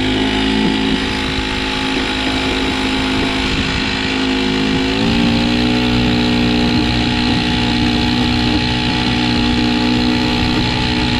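Honda GX35 35cc air-cooled four-stroke engine on a kayak outboard drive, running hard under throttle and heard from right beside the engine. About five seconds in, its pitch steps up a little as it speeds up.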